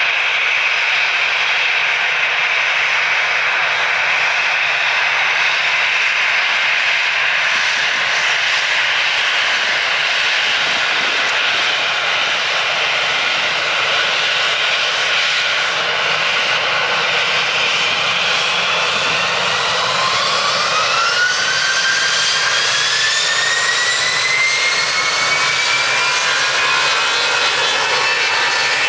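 Airbus A321's twin jet engines running as it taxis onto the runway. About two-thirds of the way in they spool up for take-off: a whine that rises steadily in pitch as thrust builds.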